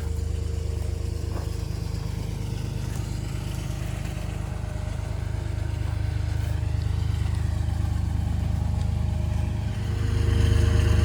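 Motor vehicle engine running steadily, a low hum that gets louder about ten seconds in.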